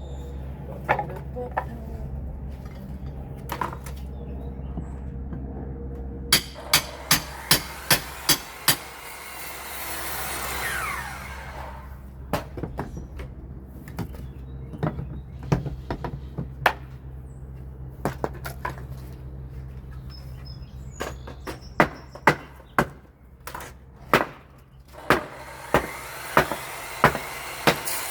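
Hammer striking nails in old wooden door boards, knocking the protruding nails over or out, in runs of quick blows with a brief scrape about ten seconds in. A steady low hum runs underneath.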